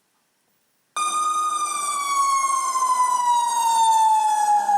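Emergency vehicle siren wailing, starting suddenly about a second in and sliding slowly down in pitch.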